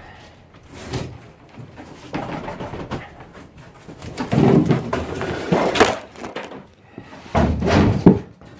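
Irregular knocks, scrapes and shuffling from hands-on work on a plywood subfloor, loudest in a cluster about halfway through and again near the end.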